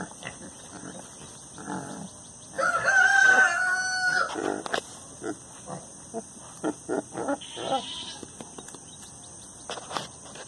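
An animal call: one loud call held at a steady pitch for about a second and a half, starting about two and a half seconds in, followed by a run of short, sharp sounds.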